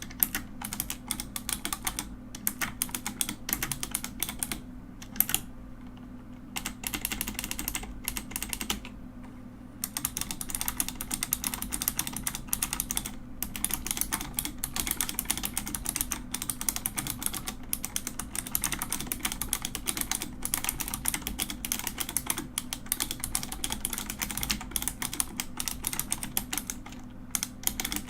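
Mechanical keyboard being typed on: fast, continuous key clacking, broken by a few short pauses in the first ten seconds.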